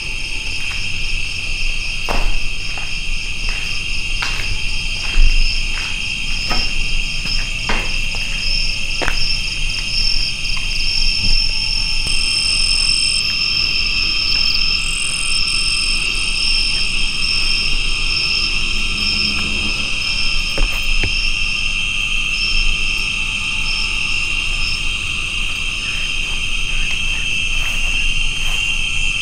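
A dense chorus of jungle insects makes a continuous shrill drone, and one voice in it pulses in a fast trill. Several light clicks or knocks come in the first ten seconds or so, and one more about twenty seconds in.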